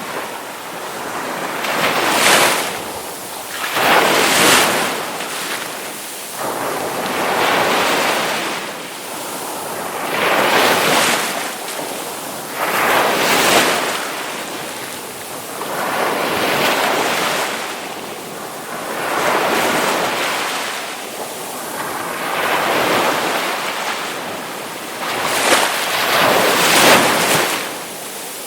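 Ocean surf: waves break one after another, each surge swelling and easing every two to three seconds.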